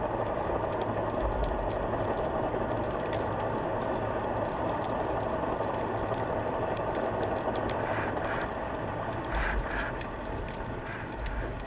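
Underwater ambience picked up through a GoPro's waterproof housing: a steady muffled wash with many faint clicks and crackles scattered through it.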